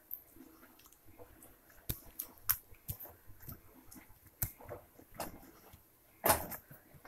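Pink fluffy slime made from glue, borax and shaving cream being squeezed and kneaded by hand on a tabletop: scattered short wet squishes and clicks, with one louder burst about six seconds in.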